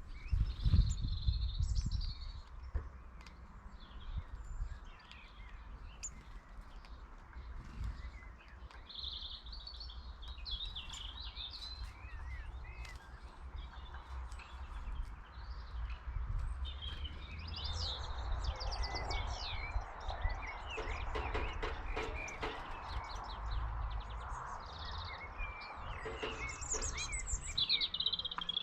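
Small songbirds chirping and twittering again and again, over a low steady rumble.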